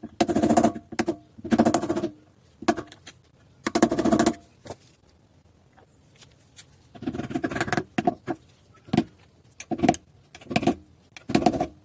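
Hand tools and metal suspension parts being worked: short rattling, ratchet-like bursts with a metallic ring, then a quiet spell and a few sharp clicks and knocks near the end.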